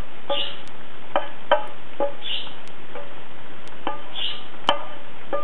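Liver frying in butter in a wok with a steady sizzle, while cooked sliced onions are scraped in with a wooden spoon, giving several soft knocks. Soft plucked-guitar notes sound over it.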